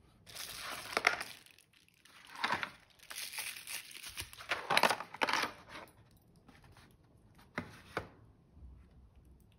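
Plastic bubble wrap crinkling and rustling in irregular bursts as a wrapped part is unpacked from a cardboard box, followed by two sharp clicks as small metal parts are picked out of the box.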